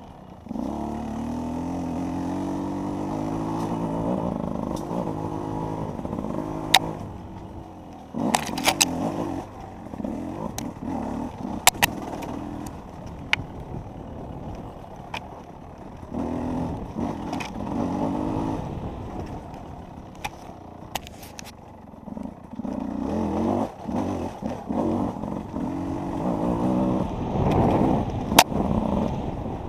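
Enduro motorcycle engine revving up and down as it is ridden through a race course, with sharp knocks and clatter now and then.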